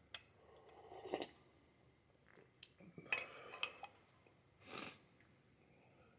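Faint, sparse clinks of a spoon against a soup bowl, a single clink about a second in and a small cluster around three to four seconds, with a brief soft noise near five seconds.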